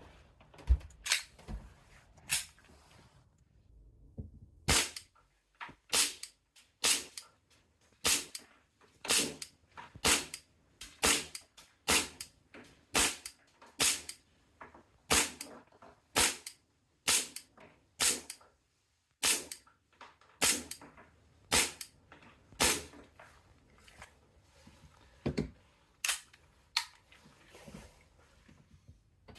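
Tokyo Marui M&P9L gas blowback airsoft pistol firing single shots in a steady string, about one to two a second with a couple of short pauses, each a sharp crack with the slide cycling. This is test-firing to check the stock grouping.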